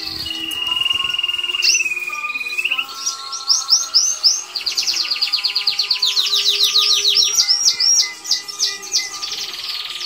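Domestic canary singing: a long rolling trill, then fast runs of rapidly repeated chirping notes.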